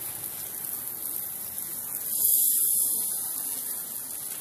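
Food sizzling on a hot grill grate: a steady high hiss that swells louder for about a second midway.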